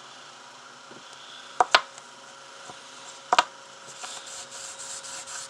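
Two pairs of sharp knocks, then from about four seconds in, wet sandpaper rubbing on a silver pendant in quick, repeated strokes.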